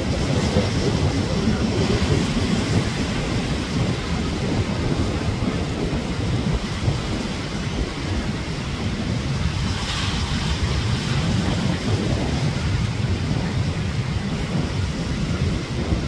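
Ocean surf breaking and washing onto a sandy beach, with wind buffeting the microphone and giving a steady low rumble.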